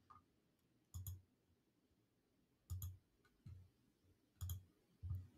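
Computer mouse buttons clicking faintly, several single clicks about a second apart, each with a soft knock.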